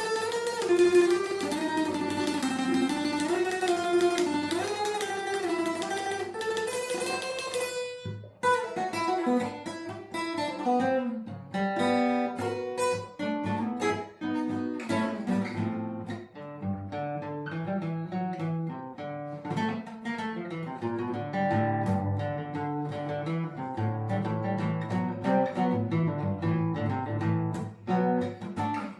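Acoustic guitar music. A smooth, gliding melody is held over the guitar for about the first eight seconds. After a brief break it gives way to a run of separately plucked notes and strummed chords.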